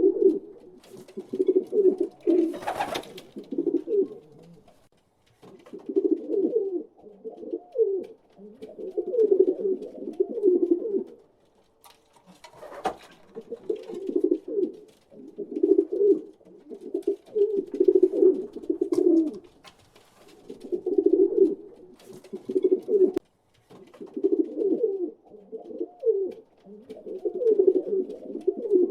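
Pigeons cooing in repeated low bouts with short pauses between them. A brief noise cuts across the cooing about three seconds in and again about halfway through.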